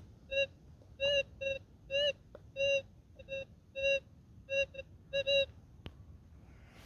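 Minelab Gold Monster 1000 metal detector giving a string of short electronic beeps, about a dozen over five seconds, some in quick pairs, as the coil sweeps back and forth over a buried target. A single sharp click comes near the end.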